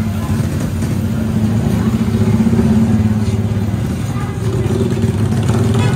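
An engine running close by, a low hum that swells about two seconds in and again near the end.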